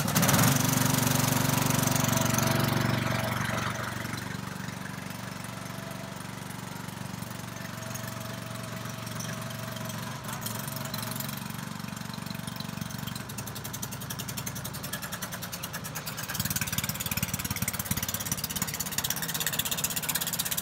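Small petrol engine of a children's mini tank starting up, running fast for about three seconds, then settling to a steady idle. It picks up again a few seconds before the end as the tank moves off.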